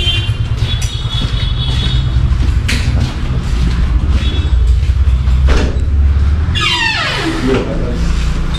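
Wind rumbling on the microphone, with a few thin high squeaks in the first two seconds and a squeal that glides steeply down in pitch about seven seconds in.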